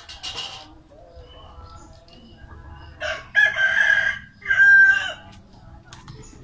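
A rooster crows about three seconds in, one call of roughly two seconds with a short break near its end. It rises over faint clucking from the flock, and a brief harsh squawk sounds at the very start.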